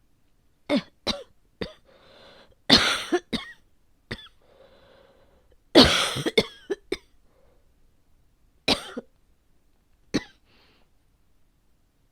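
A woman coughing repeatedly. Three short coughs are followed by two longer coughing fits about three and six seconds in, then two more single coughs, with drawn-in breaths between them. She thinks the coughing may be asthma coming on.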